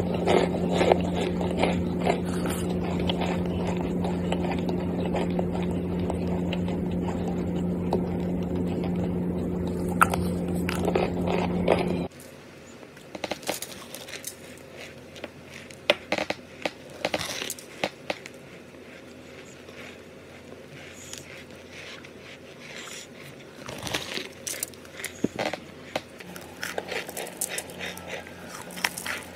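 Close-miked biting and crunching of chalky white cornstarch chunks, with crumbling and chewing clicks. A steady low hum lies under the first half and stops suddenly about twelve seconds in. After that the crunches come as sharp, separate snaps over a quieter background.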